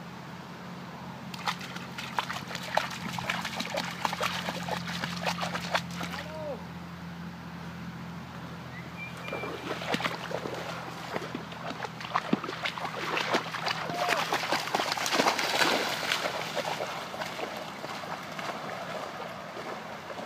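Sloshing and splashing of wading through shallow marsh water among dry cattail reeds, in two bouts with a pause between, over a steady low hum.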